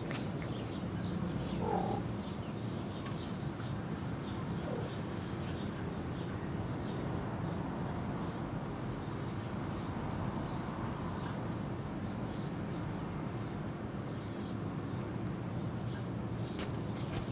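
Birds chirping over and over in short, high chirps, over a steady low background hum.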